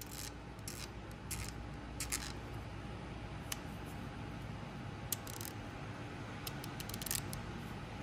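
Fine-tooth Snap-on hand ratchet being worked back and forth by hand, giving short, irregular bursts of quiet, fast fine clicking from its pawl mechanism. The mechanism is being checked for smoothness, with no hang-ups.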